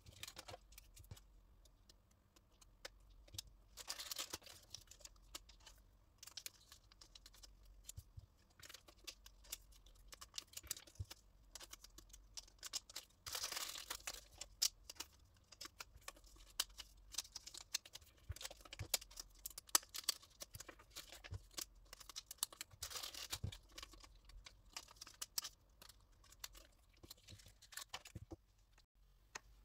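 Clear plastic sleeves crinkling and cardboard photocards clicking and tapping as they are handled and slid in and out of the sleeves, with a few louder spells of crinkling.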